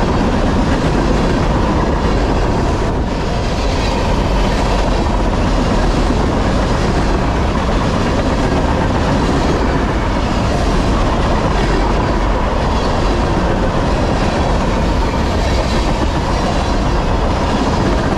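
Freight train cars carrying waste containers rolling past at speed: a loud, steady rumble of steel wheels on rail with clickety-clack over the rail joints and a faint steady ringing tone.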